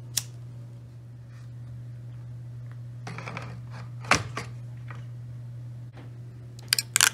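Handling sounds of PC parts being fitted into a 3D-printed plastic case: a click just after the start, some rustling about three seconds in, a sharp knock a second later and a quick cluster of knocks near the end, over a steady low hum.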